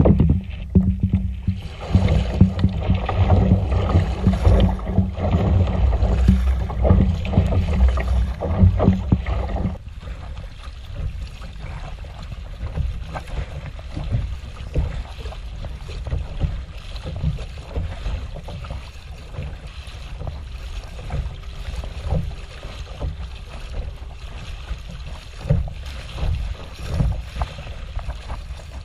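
Kayak moving through the sea: water splashing and lapping against the hull, with wind rumbling on the microphone that eases off about ten seconds in.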